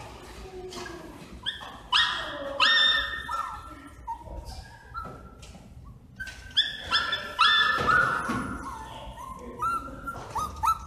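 Small dogs yipping and barking in short high-pitched calls, in several flurries, ending in a quick run of rapid yips.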